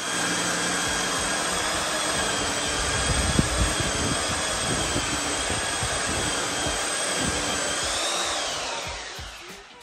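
A high-speed electric motor, like that of a vacuum or power tool, runs steadily with a high whine over a loud rushing noise. Near the end it spins down, the whine falling in pitch as it fades.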